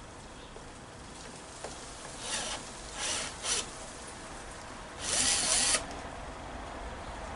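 Cordless drill driving screws, run in four short bursts, the last one the longest with the motor spinning up and holding.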